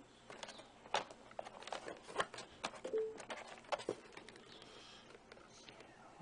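Soft, scattered crackles and clicks of a motherboard's plastic anti-static bag being handled.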